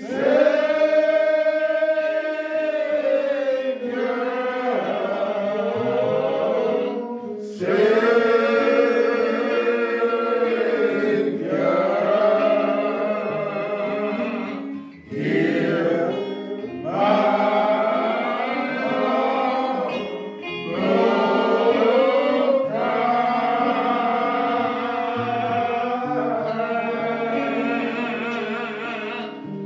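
Gospel singing, voices in long held phrases of a few seconds each with short breaks between them.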